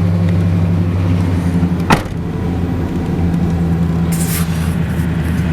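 Nissan Titan's 5.6-litre V8 running steadily at idle just after being started, with a single sharp click about two seconds in and a brief hiss near the end.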